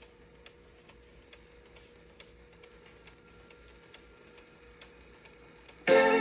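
Faint, regular ticking about two times a second over a faint steady hum from a Playmates Talking Jill doll's tape mechanism running before the tape's sound begins. Near the end, loud music from the tape starts abruptly.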